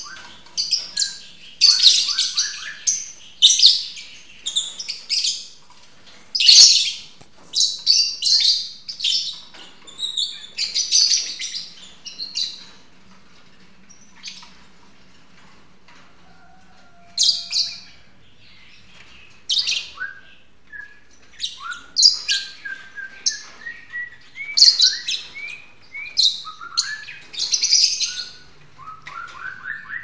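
Several caged lovebirds calling: high-pitched chirps and shrill calls in quick, overlapping bursts, with a quieter spell about halfway through.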